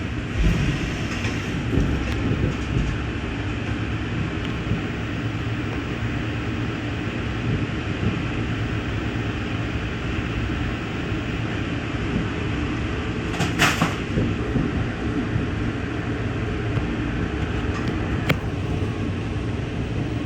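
Steady low rumble of an Amtrak passenger train rolling on the rails, heard from inside the car. A brief high squeal comes about thirteen seconds in, and a single sharp click near the end.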